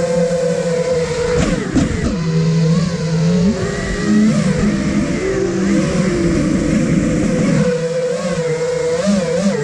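Motors and propellers of an iFlight Nazgul Evoque F5 five-inch FPV quadcopter, heard from its onboard camera, running at a steady drone. Their pitch swoops up and down as the throttle changes, quickly about a second and a half in, then shifting up and down again from about three and a half to eight seconds in.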